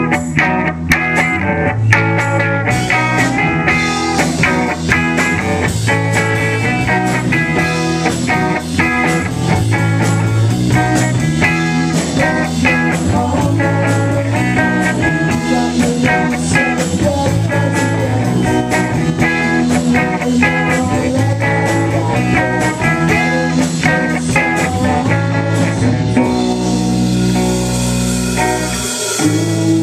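Live indie rock band playing a song on electric guitar, bass guitar and drum kit with a steady beat. Near the end the drumming thins out and a low chord rings on.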